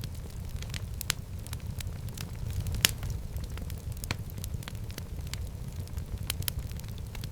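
Wood fire burning in a fireplace: a steady low rumble of flame with irregular sharp crackles and pops, one louder pop a little before the middle.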